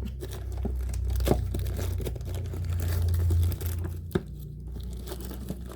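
An advent calendar door being pulled and torn open by hand, with tearing and crinkling of the packaging and a few light knocks.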